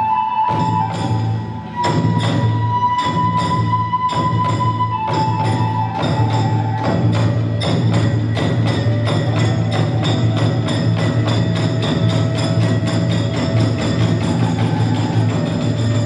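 Kagura hayashi music: a bamboo flute holding long notes over drum beats and clashing small hand cymbals. The beat gets denser about six seconds in.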